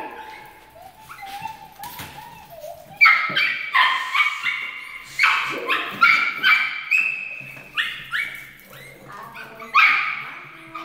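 Pet skunks squeaking in excitement: quick runs of short, high-pitched squeals and chirps, starting about three seconds in and coming again near the end.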